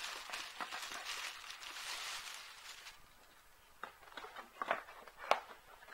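Thin plastic carrier bag rustling and crinkling as a box is pulled out of it, for about three seconds, followed by a few light taps as the box is handled.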